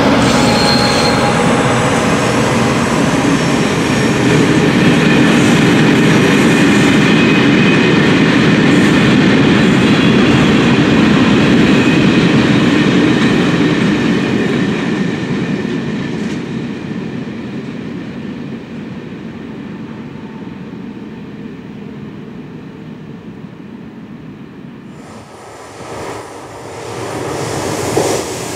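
A long freight train of tank wagons and boxcars rolling past, with a loud steady rumble of wheels on rail that fades away over the second half. After a cut near the end, an Sr1 electric locomotive hauling empty log wagons approaches, growing louder.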